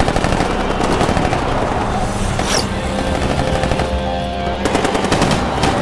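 Bursts of rapid automatic gunfire in a film battle soundtrack, one at the start and another about a second before the end, with a brief sweeping hiss midway, over a dramatic music score.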